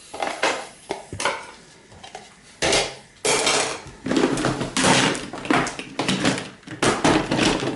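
Hard plastic clattering and knocking as vintage game consoles and their handheld controllers are picked up and moved about on a wooden table. The knocks are light and scattered at first, then come thicker and louder from about three seconds in.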